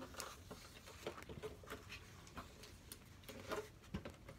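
Faint rustling and light scattered taps from handling a pen and the pages of a paper diary, a little louder near the end.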